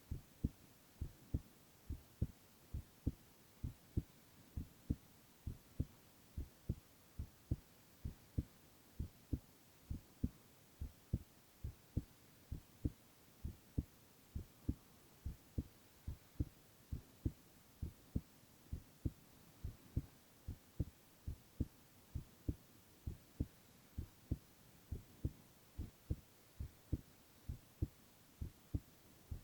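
A young man's heartbeat heard up close: a steady, even rhythm of low soft thumps, about two a second, over a faint hiss.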